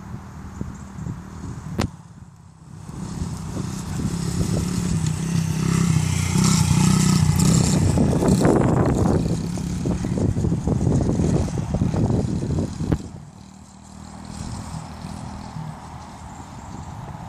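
Honda CRF50 mini dirt bike's small four-stroke single-cylinder engine running as the bike rides up close, getting louder, then dropping away suddenly about thirteen seconds in as it pulls off into the distance.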